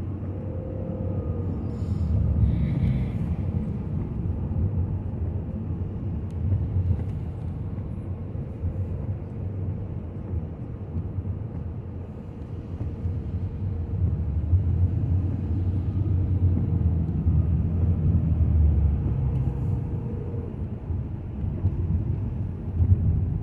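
Steady low road and engine rumble inside a moving car, swelling and easing a little as it drives.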